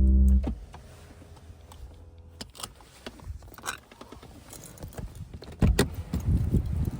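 Music cuts off abruptly about half a second in. Then come scattered sharp clicks and light knocks, with a cluster of heavier thumps and rumbling near the end.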